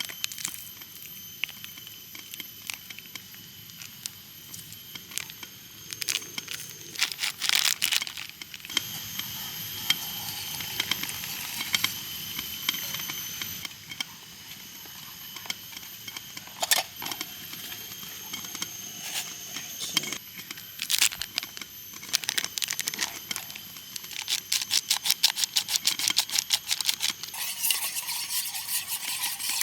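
Camp cookware being handled: scattered clicks and clinks of metal pot and utensils, turning into fast, rapid stirring scrapes of a spoon in a pot over the last few seconds.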